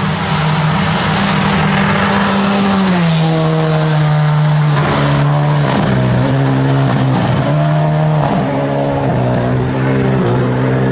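Rally car engine running hard at high revs. Its note drops about three seconds in, then dips and rises again and again with the throttle.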